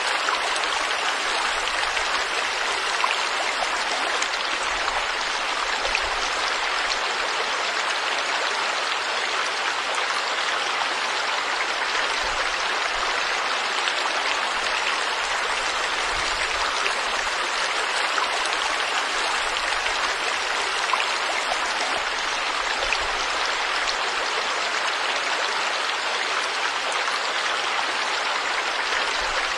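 Stream water flowing and splashing over rocks in a steady, even rush.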